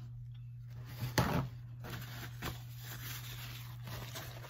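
A steady low hum, with one sharp knock about a second in and a few fainter handling noises after it.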